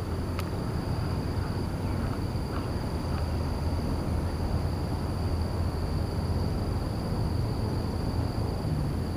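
Steady high-pitched insect drone over a low rumble of wind on the microphone, with a single light click about half a second in.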